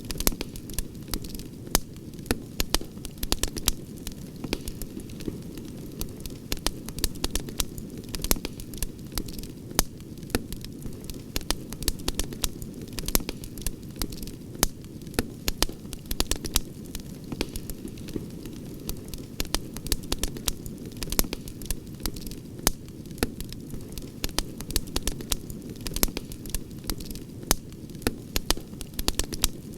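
Wood campfire crackling, with frequent irregular sharp pops and snaps over a steady low rush of the burning fire.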